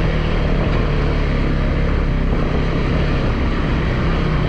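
Motorcycle engine running steadily while riding, with wind and road noise on the microphone.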